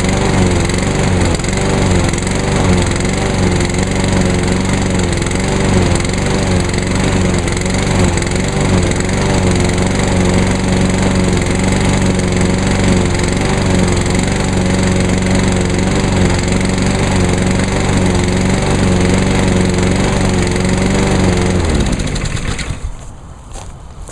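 Honda GCV160 single-cylinder engine on a push lawn mower running steadily at speed, then shut off about two seconds before the end and spinning down to a stop.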